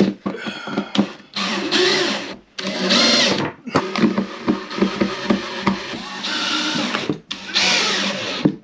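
Cordless drill driving screws into a ceiling-mounted LED dome light fixture, its motor whirring in several short bursts.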